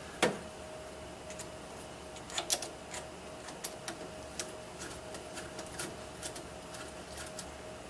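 Light, irregular clicks and ticks of small screws and a screwdriver being worked by hand on a 3D printer's extruder fan guard, over a faint steady hum.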